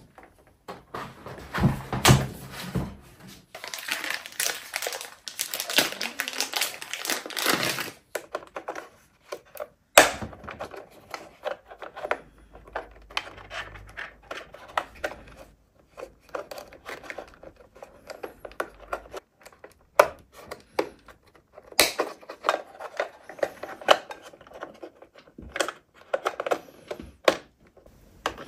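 Handling noise from assembling a 3D printer: rustling and knocks as the metal gantry frame is moved about, then scattered sharp clicks as cable plugs are pushed into the connector ports on the printer's base.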